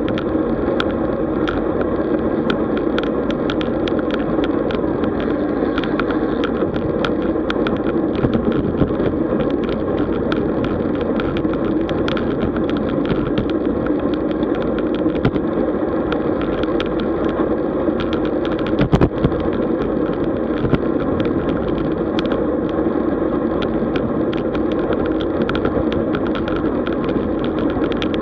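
Road bicycle riding along: steady wind and road noise with frequent small rattles and clicks, and one sharper knock about 19 seconds in.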